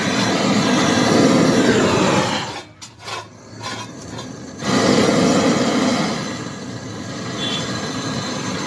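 Gas brazing torch flame roaring steadily against a pipe joint on a refrigerator compressor, heating the brazed joint to loosen the pipe. About two and a half seconds in the roar drops and flickers for a couple of seconds, then surges back loud and settles steadier.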